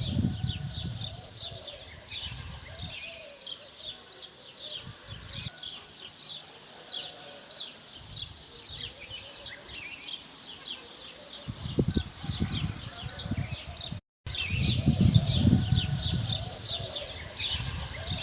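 Many small birds chirping together, a dense, unbroken stream of short high chirps. Low rumbling comes in bursts near the start and again in the last third. There is a brief dropout about fourteen seconds in.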